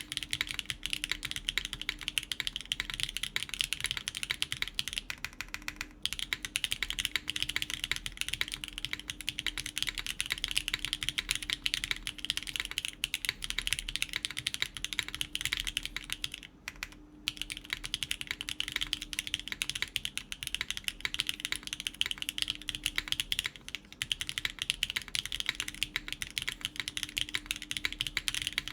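Fast, continuous typing on a gasket-mounted Gundamhaku mechanical keyboard with BSUN Tai Chi tactile switches (factory-lubed, 50 g springs), an FR4 plate and GMK keycaps. The keystrokes are short, dense clacks, with two brief pauses: about 5 seconds in and about 16 to 17 seconds in.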